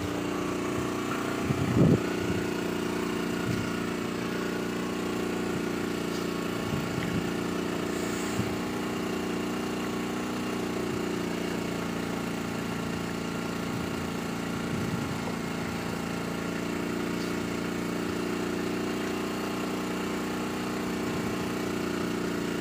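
A fishing boat's engine running steadily, a constant low hum, with a couple of knocks about two seconds in.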